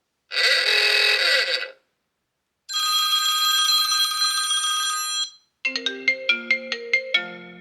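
iPhone 15 Pro ringtones and alert tones played one after another. A short chime with gliding tones starts about a third of a second in; a held, bell-like chord of many steady tones follows from about three seconds; and a melody of quick, evenly spaced short notes begins near six seconds in.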